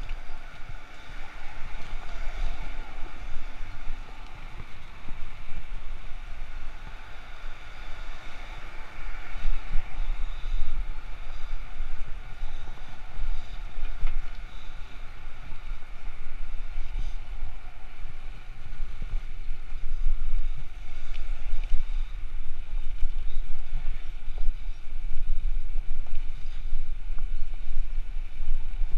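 Wind buffeting the microphone of an action camera on a moving bicycle: a low, uneven rumble that swells and drops in gusts.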